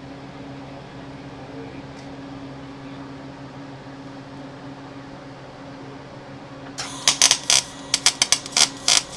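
Welder arcing in a quick run of short, loud crackling bursts, starting about seven seconds in, while heat-shield tabs are tack-welded onto a catalytic converter. A steady low electrical hum runs underneath.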